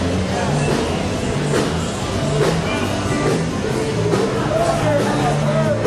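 Loud rock and roll music with a stepping bass line and a singing voice.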